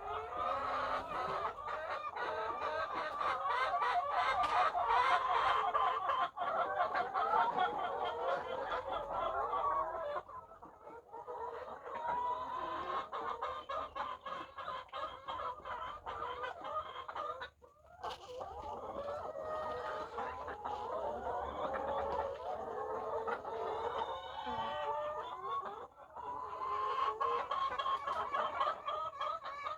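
A large flock of laying hens clucking and calling all at once, a dense continuous chorus that dips briefly about a third of the way in.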